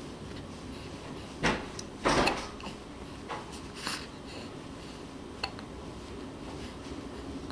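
A few soft knocks and rustles, the loudest about one and a half and two seconds in, with smaller clicks after them, over a low steady background hum.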